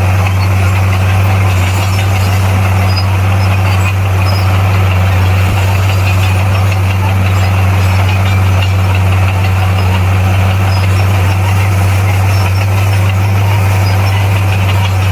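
Bulldozer's heavy diesel engine running steadily at an even, unchanging pitch.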